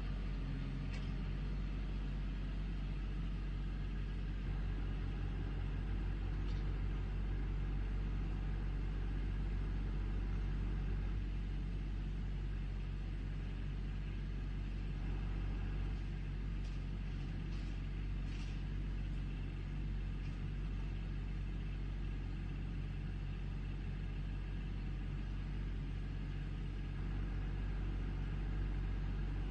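Backhoe engine running steadily, with a few faint clanks now and then.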